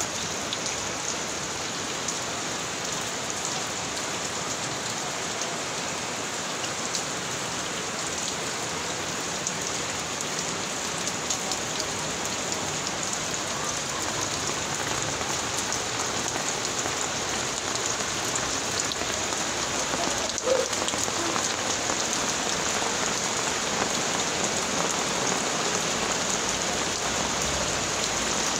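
Steady rain falling into water-filled plastic tubs and onto wet ground, countless drops splashing on the water surfaces. One brief louder sound stands out about two-thirds of the way through.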